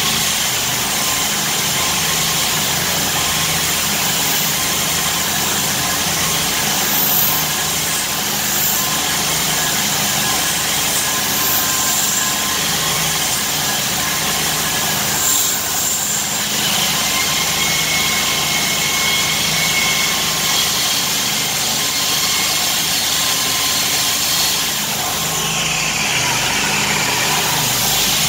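Core Cut concrete saw running steadily as its diamond blade cuts through concrete, an even engine drone with a few steady high tones over it.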